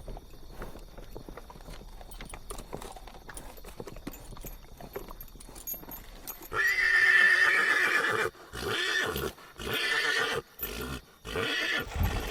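Horse hooves clip-clopping faintly, then a loud horse whinny about six and a half seconds in, followed by four shorter calls.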